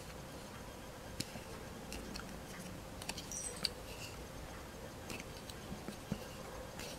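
Faint, scattered clicks and taps of small plastic Playmobil toy pieces being handled and fitted together, a clothes-rack rod against its base, a few light ticks a second or so apart.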